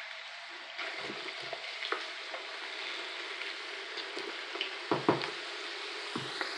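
Raw potato sticks frying in hot oil in a shallow pan: a steady sizzle and bubbling that grows louder about a second in as more sticks go in. A few short knocks come as further sticks are dropped into the oil.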